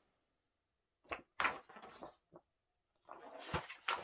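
Paper rustling as a large printed booklet is handled and its pages are turned, in a few short bouts with a soft thump about three and a half seconds in.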